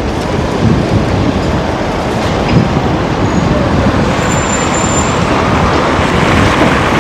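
Street traffic noise: cars and a van driving past on a wide city road, a steady rumble of engines and tyres.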